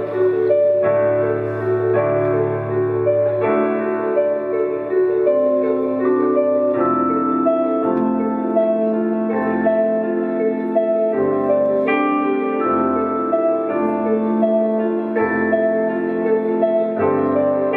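Live band instrumental: piano and synthesizer keyboards playing slow, held chords. From about seven seconds in, a low bass note pulses roughly once a second.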